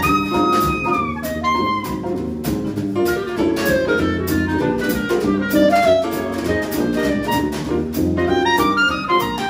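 Small swing jazz band playing: a reed instrument leads a quick run of short melody notes over grand piano, archtop electric guitar, sousaphone bass and drum kit.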